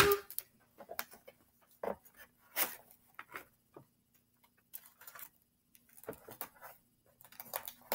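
Irregular light taps, clicks and rustles of paper and tape being handled, the louder ones about two to three and a half seconds in, over a faint steady hum.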